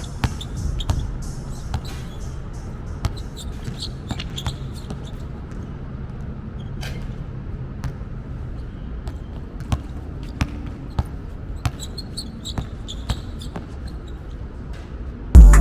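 A basketball bouncing on a court: scattered, irregular thuds rather than a steady dribble rhythm. Loud music comes in abruptly right at the end.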